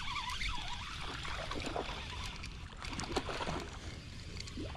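Wind rumbling on the microphone, with light water splashing and scattered small clicks.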